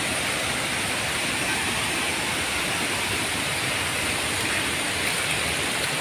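Waterfall in high flow after rain, its falling water a steady, unbroken rush.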